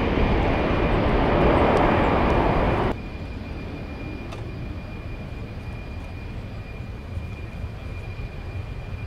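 Boeing 787-9 airliner's jet engines running loud at takeoff thrust as it climbs out. About three seconds in the noise drops abruptly to a much fainter distant rumble.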